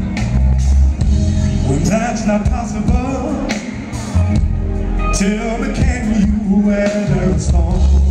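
Live R&B band performance: a male lead singer sings through a PA over an electric bass playing heavy, sustained low notes and drums.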